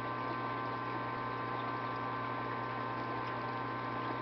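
Aquarium equipment running together: return pump, powerheads, chiller, feeder and an algae scrubber's pump and drain, a steady hum with several fixed tones over a faint watery hiss.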